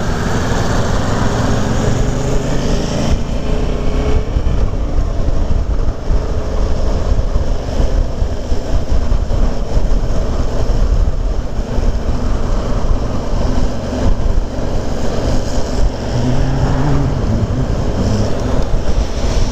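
Motorcycle engine running while riding on the road, under a steady rush of wind on the microphone.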